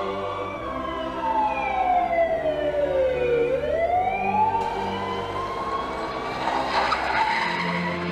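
A siren wailing, its pitch sliding slowly down for about three seconds and then climbing back up, over held notes of music. A rushing noise swells near the end.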